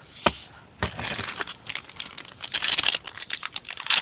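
Trading cards being handled and flipped through by hand: a sharp click about a quarter second in, then a quick run of soft rustling and sliding strokes.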